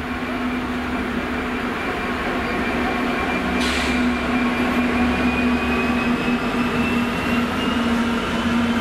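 Class 66 diesel locomotives hauling a freight train slowly past: the steady drone of their two-stroke V12 engines, with a faint rising whine and a short hiss about three and a half seconds in.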